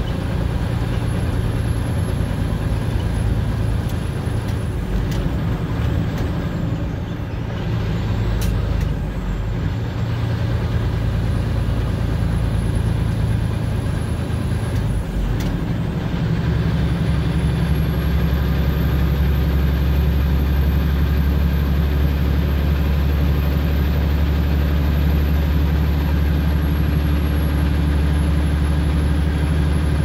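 Truck engine pulling steadily as the truck gets under way, with a gear change about five seconds in and another about fifteen seconds in. At each change a high whine drops away, then climbs back as the engine pulls again. It runs deeper and stronger after the second shift.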